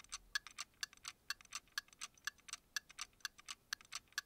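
Mechanical watch ticking: faint, crisp, evenly spaced ticks, about four a second.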